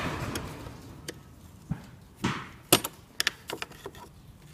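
Screwdriver prying at the clips on a Volkswagen Touareg's plastic air filter housing: a scrape at first, then a string of sharp clicks and light knocks as the clips come free and the housing lid is handled.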